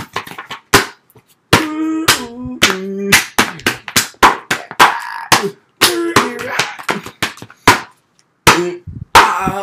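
Quick, irregular sharp hand slaps and claps, mixed with short wordless vocal sounds that rise and fall in pitch.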